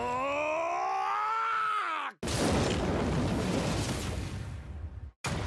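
Anime episode soundtrack: a long drawn-out cry that rises steadily in pitch and cuts off abruptly about two seconds in, followed by a dense rushing rumble like an explosion that stops suddenly near the end.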